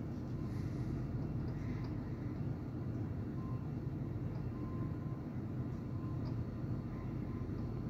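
Steady low background rumble with no distinct events, and a faint intermittent tone near the middle of the pitch range.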